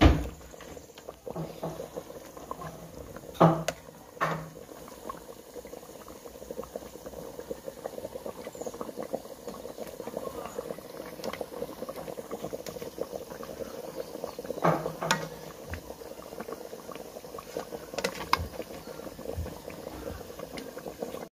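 Meat-and-potato curry bubbling in an electric cooker pot: a steady simmering crackle. Now and then a spatula knocks against the pot while stirring, loudest right at the start and about three and a half seconds in.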